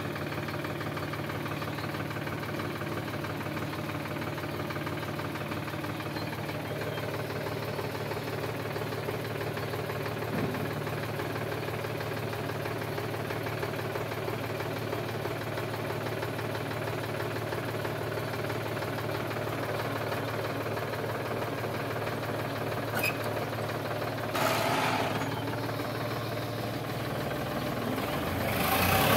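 Sonalika tractor's diesel engine idling with a steady knocking clatter, then revving up near the end as the tractor moves off.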